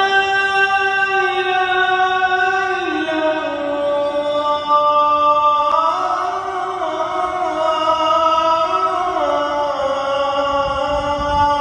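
A single man's voice chanting long, drawn-out notes that shift slowly up and down between a few pitches, with no instruments.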